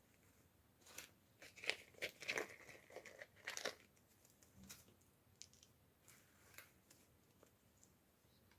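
Plastic packaging crinkling and tearing in a quick flurry of handling noises between about one and four seconds in, followed by a few lighter clicks and rustles.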